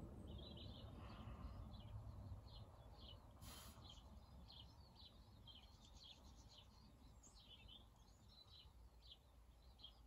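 Faint, busy high chirps and twitters of small garden birds around a feeder, many short calls in quick succession, with a brief hiss about three and a half seconds in.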